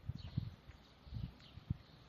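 Small birds chirping faintly in short falling notes, under a few louder low dull thumps that come near the start, a little after a second in, and once more shortly before the end.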